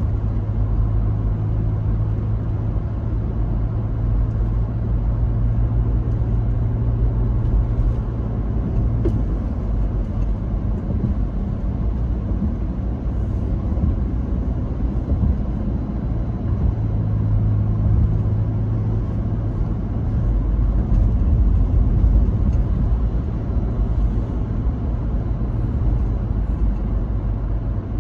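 Car cruising at highway speed: a steady low rumble of engine and tyre noise.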